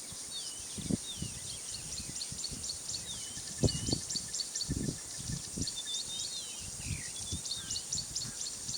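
Bush birds chirping and trilling over a steady high-pitched drone, with dull low scuffs and thumps scattered through. The loudest thump comes about three and a half seconds in.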